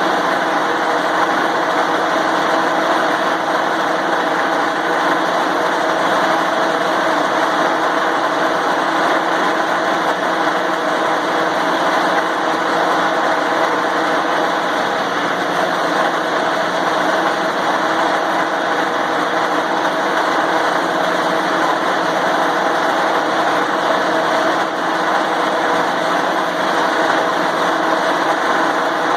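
Grinder running steadily with its grinding wheel pressed against a snowblower tire, spinning the tire up to speed so the Fix-A-Flat sealant inside spreads out.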